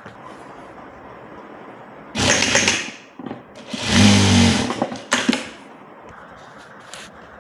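Electronic sewing machine running in two short bursts of stitching, the second with a steady motor hum, followed by a sharp click.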